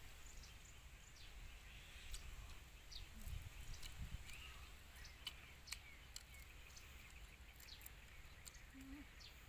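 Faint outdoor ambience: a low rumble of wind with scattered faint bird chirps and a few soft ticks.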